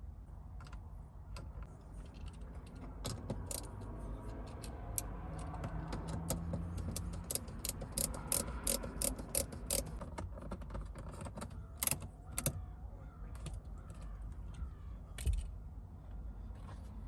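Screws being driven back into a car's plastic door trim by hand: a long run of small clicks and scrapes, thickest in the middle, with a few louder clicks further on.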